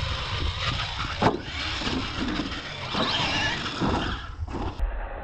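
Electric motors of R/C monster trucks whining up and down in pitch with the throttle, over tyre and dirt noise. A sharp knock comes about a second in as an airborne truck lands.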